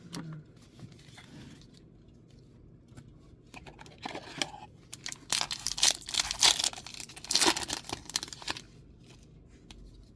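A Magic: The Gathering booster pack wrapper being torn open and crinkled. A run of loud rips and crackles starts about four seconds in and stops near nine seconds.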